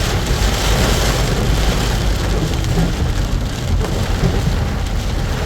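Heavy thunderstorm rain pelting a car, a steady dense hiss over a continuous low rumble.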